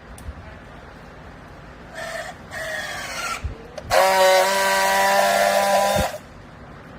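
A machine's pitched whine with hiss: two short rising bursts, then a louder steady whine for about two seconds that cuts off suddenly.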